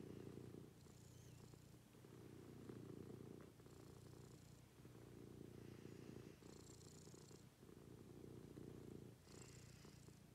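Domestic cat purring steadily while being stroked on the head; the faint purr swells and dips with each breath, about every second and a half.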